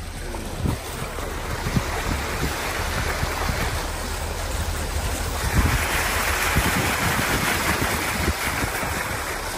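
Floodwater rushing and splashing along the side of a car as it drives through a flooded road and pushes a wave of water ahead of it. A steady rushing wash that grows louder about halfway through, over a low rumble.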